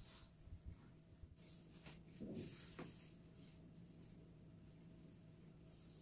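Near silence: faint, soft scratching and rustling of kitchen handling over a low steady hum, with a couple of slightly louder soft touches a little past two seconds in.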